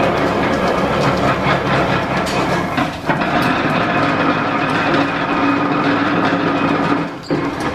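1897 Whitcomb eight-foot metal planer, belt-driven from a line shaft, taking a cut on a metal workpiece: a loud, steady mechanical clatter with a running hum, dipping briefly about three seconds in and again near the end.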